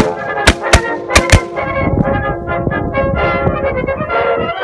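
Brass-led music with several sharp hits in the first second and a half, then a denser low rumble under the brass.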